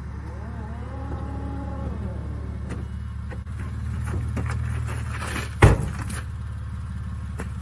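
Minivan engine idling steadily, with scattered clicks and knocks of the driver's door being opened and a loud thump about five and a half seconds in as the door slams shut.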